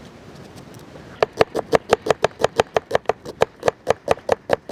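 Knife chopping rapidly on a wooden cutting board, about six even strokes a second, starting about a second in.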